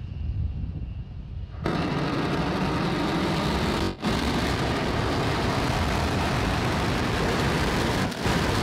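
A SpaceX Starship prototype's Raptor rocket engines relight for the landing flip and burn about one and a half seconds in: a faint low rumble suddenly gives way to a loud, steady roar, with two brief dips.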